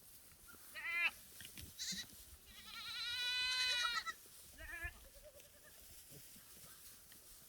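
Goats bleating: a few short bleats, then one long quavering bleat about two and a half seconds in, and a last short one near the middle.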